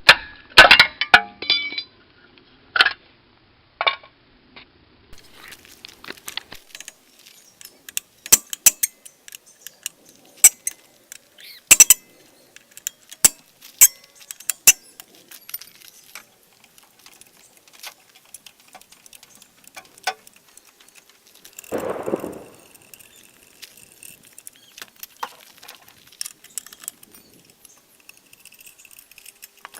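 Metal tools clinking and knocking while a truck wheel is being taken off: sharp single clicks every second or so, with a short rush of noise about 22 seconds in.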